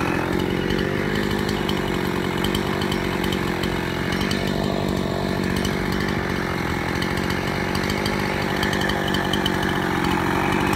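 Chainsaw running steadily at a constant speed.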